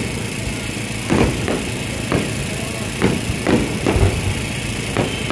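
Fireworks exploding: an irregular series of about eight booms in quick succession over a steady background din.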